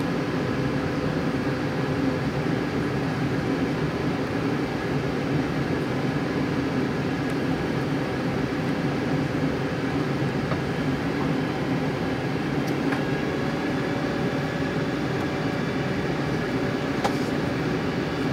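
Steady cabin drone inside a Boeing 747-8 airliner on approach: engine and airflow noise at an even level, with a few faint steady tones running through it.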